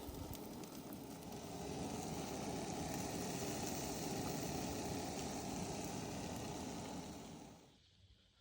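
Sausage sizzling in a frying pan, a steady crackling hiss that cuts off suddenly near the end.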